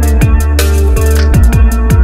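Electronic dance music with a heavy bass line and a steady, punchy drum beat.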